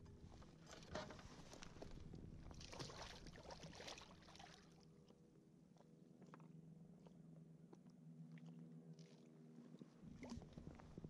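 Faint splashing and light knocks as a lake trout held in a fish lip-gripper is let go over the side of a kayak. The splashy noise comes about three seconds in, followed by a faint low hum.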